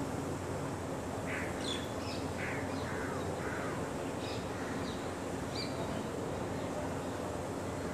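Birds calling over a steady background noise: a handful of short, harsh calls in the first half, mixed with a few higher chirps.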